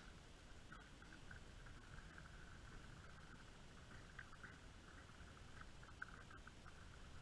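Near silence: only faint outdoor background noise, a low steady rumble with light crackle.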